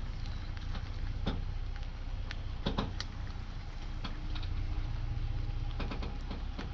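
2020 Jeep Gladiator's engine running at low speed while reversing with a camper trailer in tow, a steady low hum with scattered clicks and knocks.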